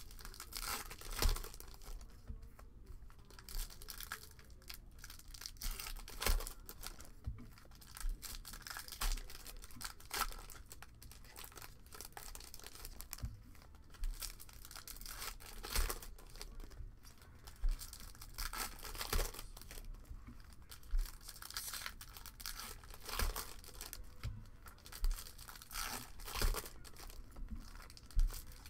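Foil wrappers of Bowman baseball card packs crinkling and tearing open in the hands, with cards handled in between; irregular sharp crackles throughout.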